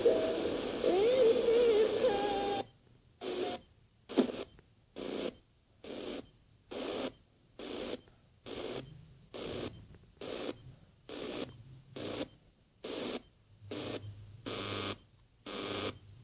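AM radio receiver: for about the first three seconds, wavering whistling tones over the signal. Then the sound cuts off and gives way to short bursts of static with silence between them, about one every 0.7 seconds, as the tuner steps along the AM dial.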